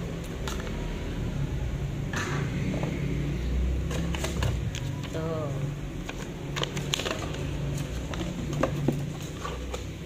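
Plastic hair-dryer nozzles, a paper leaflet and a cardboard box being handled, giving scattered light clicks and rustles over a steady low hum, with a few soft spoken sounds.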